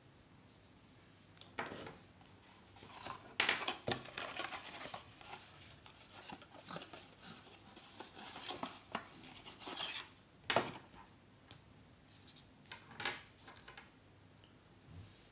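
Handling noises of unboxing a fitness band: packaging and small plastic parts rubbed, scraped and set down, with several sharp clicks. The noises start about a second and a half in and fade near the end.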